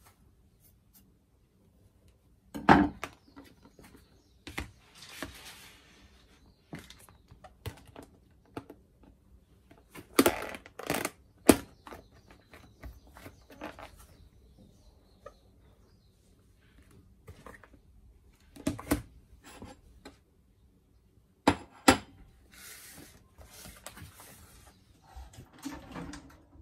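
Irregular clinks and knocks of dishes and kitchen utensils being handled, with a few sharper knocks spread through and a couple of short hissy stretches.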